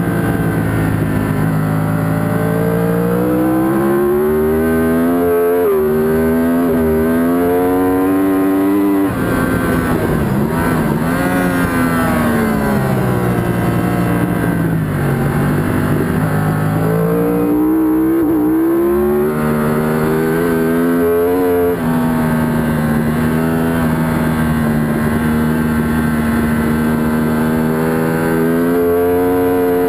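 Yamaha R1 inline-four engine at racing speed, heard from an onboard camera. It revs up through the gears with brief dips at each shift, eases off and falls in pitch about a third of the way in under braking and cornering, then pulls hard again. It holds a steady high pitch for a long stretch before rising once more near the end.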